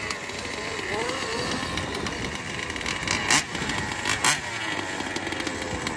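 Small two-stroke engines of gas-powered 1/5-scale RC cars running and revving, pitch rising and falling. Two short sharp noises stand out, about three and four seconds in.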